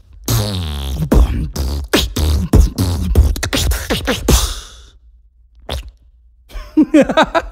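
Rubber whoopie cushion squeezed out at the microphone: a buzzing raspberry that drops in pitch and breaks up into rapid sputters. Near the end a beatboxer imitates it with his mouth in a short, wavering buzz.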